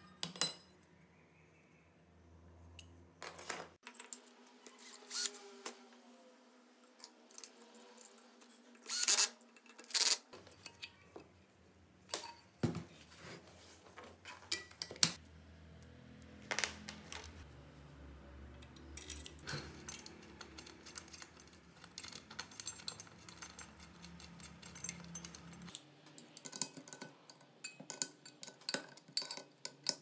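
Aluminium angle brackets and small screws clinking and tapping against a washing machine motor's casing and each other as they are handled and fitted: irregular sharp metallic clicks.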